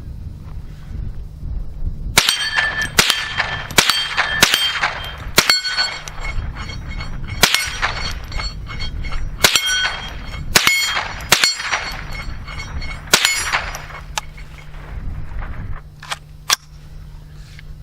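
.22 LR shots from a Winchester Wildcat semi-automatic rifle, about a dozen at an irregular pace, many followed by steel target plates ringing as they are hit.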